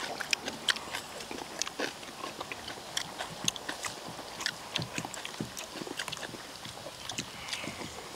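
Several people eating at once: chewing and slurping mouth sounds, with many short clicks of spoons and chopsticks against stainless steel bowls.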